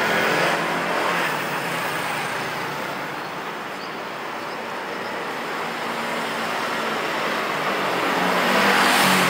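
Street traffic with cars and motor scooters passing steadily. A car goes by close near the end and is the loudest.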